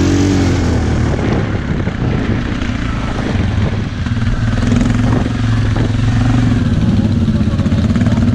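Suzuki KingQuad 700 ATV's single-cylinder four-stroke engine running under changing throttle as it is ridden over rough sandy ground, with a few knocks and rattles from the bumps.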